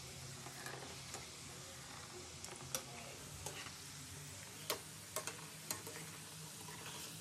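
Sabudana vadas deep-frying in hot oil in a kadai: a steady, fairly quiet sizzle, with a few sharp clicks as a wire spider skimmer turns them in the oil.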